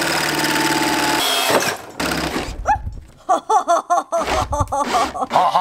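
Cordless drill running steadily as it bores a hole through a metal door panel, stopping about a second and a half in. After that come short, uneven pulses of sound.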